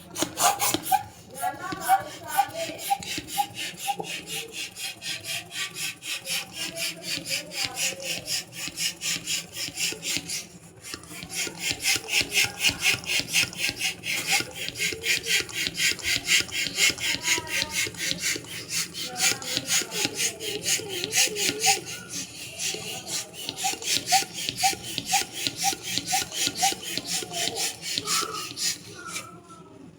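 Hand balloon pump being worked fast, each stroke a rasping rush of air, a few strokes a second, with one short pause partway through.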